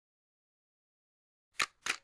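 Two short, sharp clicks about a third of a second apart, in otherwise dead silence.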